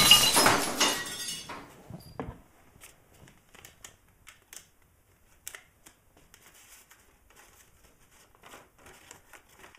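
Window glass shattering as a brick comes through it. The crash fades over the first second or so with glass pieces tinkling down, followed by faint, scattered crinkling and small clicks.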